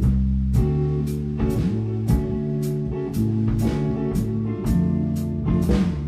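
Instrumental rock band playing live: electric guitar and bass holding sustained notes over a drum kit hitting about twice a second, heard as a rough mix of the live drum and scratch tracks.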